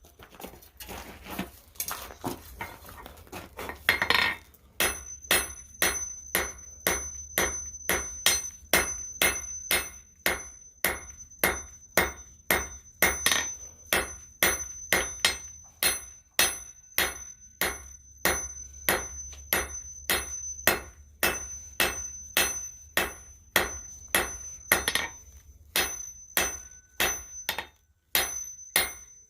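Blacksmith's hand hammer striking steel on an anvil in a steady rhythm of about two blows a second, with the anvil ringing high between blows. The rhythm sets in after a few seconds of quieter, irregular noise.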